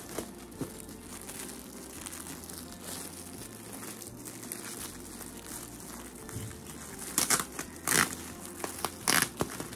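Gift packaging being handled, crinkling and rustling, with a few louder rustles in quick succession near the end.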